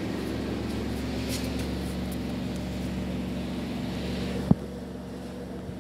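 Steady low machine hum at one constant pitch, under a hiss that dies away about four seconds in, followed by a single sharp click.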